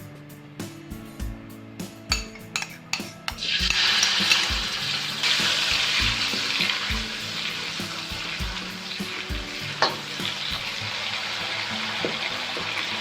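Food going into hot oil about three seconds in and sizzling loudly as it fries in a pan, with one sharp tap later on. Background music with a steady beat plays throughout.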